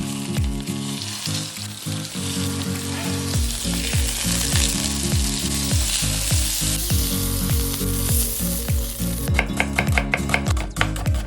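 Salmon frying in a hot pan, a steady sizzling hiss, over background music with a steady beat. Near the end the sizzle gives way to a quick run of sharp clicks and taps.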